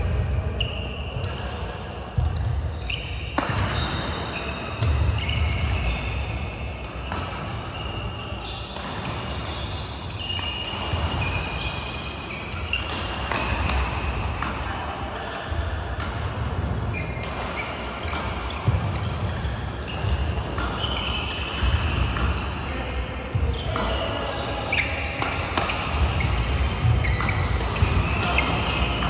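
Badminton rally in a large hall: sharp cracks of rackets hitting the shuttlecock, shoes squeaking on the court mats and thudding footfalls, with voices from other courts in the background.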